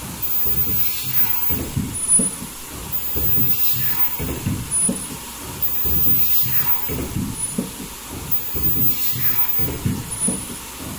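Richpeace II foldable mask production line running: continuous mechanical clatter, with a thin high whine and a hiss that come and go in a regular cycle about every three seconds.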